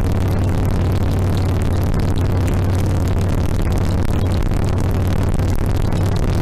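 2007 Harley-Davidson Sportster XL1200R's 1200 cc air-cooled V-twin running steadily, with a strong low hum and an even rush of noise over it that holds unchanged throughout.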